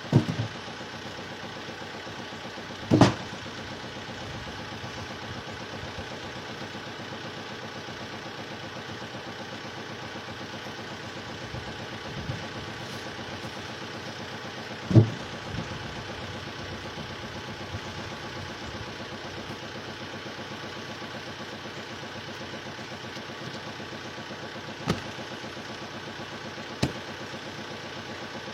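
An engine running steadily at idle, with a few sharp knocks or thuds over it, the loudest two about three seconds in and about halfway, and two lighter clicks near the end.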